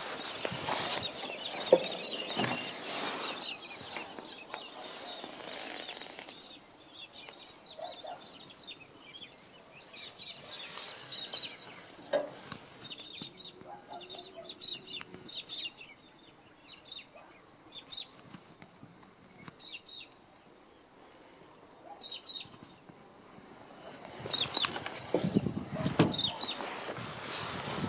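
Birds chirping and calling in short, scattered calls outdoors, with louder rustling noise on the microphone in the first few seconds and again near the end.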